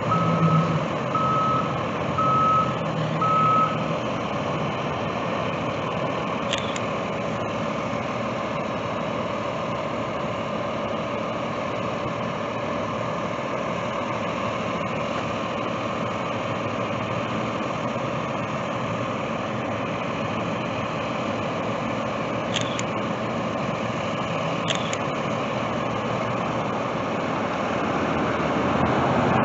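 A vehicle backup alarm beeping steadily, a string of evenly spaced beeps for the first four seconds, over the low running of school bus engines. After that the buses' engines keep running steadily.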